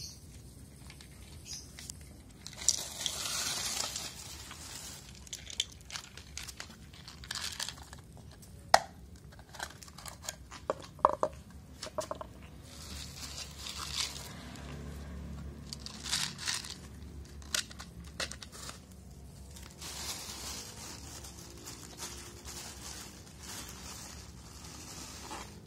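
Plastic bag crinkling and rustling in several bursts, with a few sharp clicks in between, as dry cat food is shaken out.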